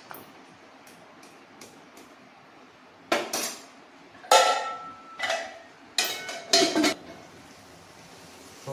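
Steel cookware clattering: a steel plate lid and spoon knocking against a steel kadhai. A few faint clicks, then about five sharp metallic clanks starting about three seconds in, one of them left ringing briefly.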